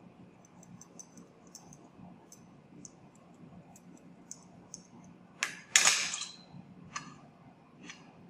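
Light ticking of a glass hockey-stick spreader against a Petri dish as bacterial inoculum is spread over the agar and the dish is turned by hand. A louder clatter of the dish being handled and set down on the bench comes about five and a half seconds in, then a couple of single clicks.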